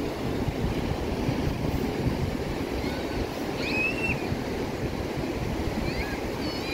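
Ocean surf breaking and washing up a sandy beach, a steady rushing with wind buffeting the microphone. A few short high chirps sound around three to four seconds in and again near the end.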